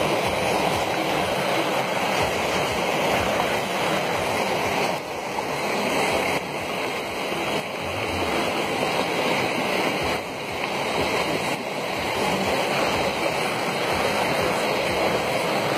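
Muddy floodwater pouring across a hill road in a steady, loud rush of water.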